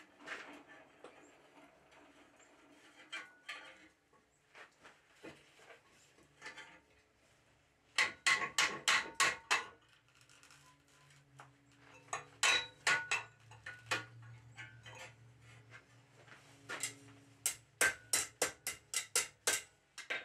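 Hand hammer striking forged steel bar in three quick runs of blows, each about eight strikes over a second and a half, with scattered lighter taps between them.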